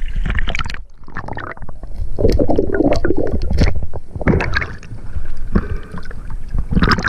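Seawater sloshing and gurgling around a camera held at the sea surface, in loud, irregular surges and splashes.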